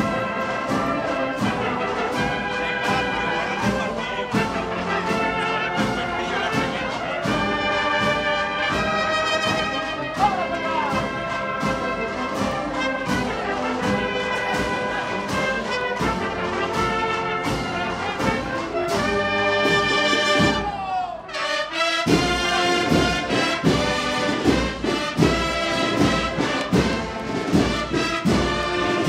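Brass band playing, with trumpets and trombones carrying the tune. About 21 seconds in the music briefly drops out and starts again with a steady, stronger beat.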